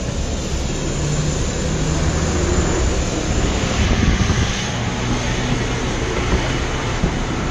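Steady engine noise on an airport apron from jet aircraft and the apron bus running, with a low hum underneath.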